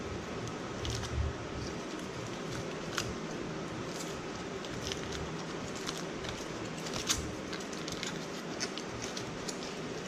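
Candy and surprise-egg packaging being handled and unwrapped: scattered short crinkles and clicks over a steady hiss.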